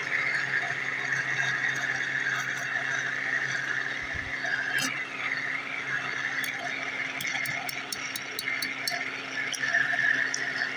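Electric blender running steadily, its blades churning a thick, creamy eggless mayonnaise of milk, lemon juice and oil. A few light ticks come through about halfway.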